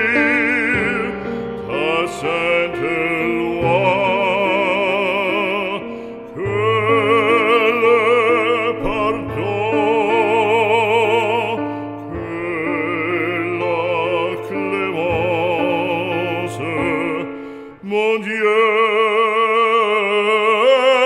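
Operatic singing: a classical voice holds long notes with wide vibrato over a sustained accompaniment, pausing briefly near the end before a new phrase.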